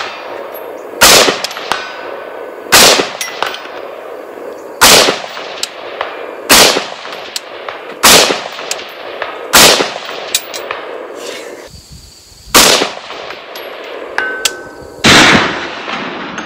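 Eight single rifle shots from a Davidson Defense Journeyman AR-15 in 5.56, fired one at a time about every one and a half to three seconds. Each shot is followed a moment later by a faint metallic ping from a steel target downrange.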